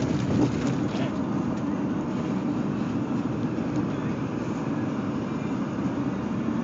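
Work truck driving, heard from inside the cab: a steady rumble of engine and road noise.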